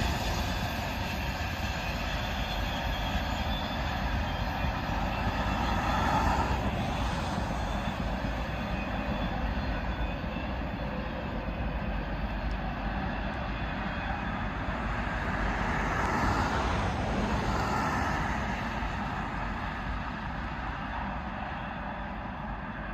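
Short Norfolk Southern freight train running past on the rails, its noise swelling twice and then fading away toward the end.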